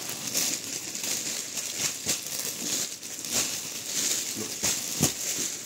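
Rustling fabric and crinkling clear plastic packets as embroidered suit sets are handled and spread out, heard as a run of irregular short crackles.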